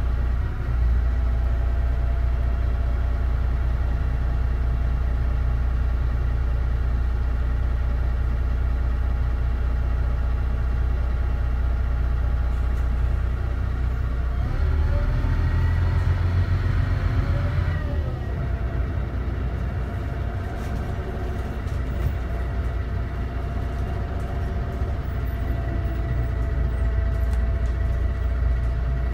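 DAF DB250 double-decker bus engine running steadily, with a whine in its sound. About halfway through it picks up, rising in pitch for a few seconds, then drops back to a steady run.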